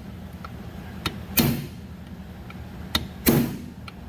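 Hammer driving a chisel against a chainsaw's clutch to tighten it back on the crankshaft: two heavy blows about two seconds apart, each just after a lighter tap.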